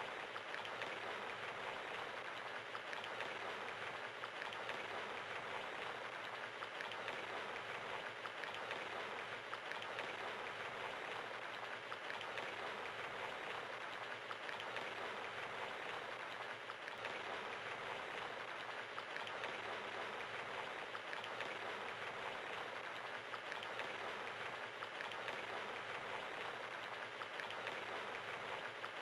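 Steady rain pattering, an even hiss of many drops with no thunder.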